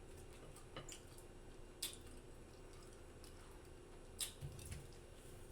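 Close-miked mouth eating sounds: a few scattered, faint wet clicks and smacks of chewing, with a soft low thud a little after the middle.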